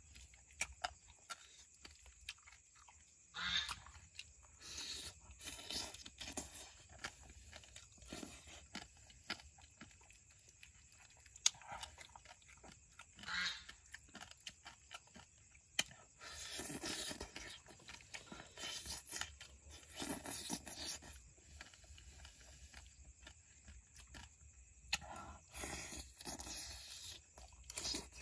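A person chewing and biting mouthfuls of steamed egg and frog in irregular short bursts, with now and then a sharp click of a metal spoon against the watermelon shell.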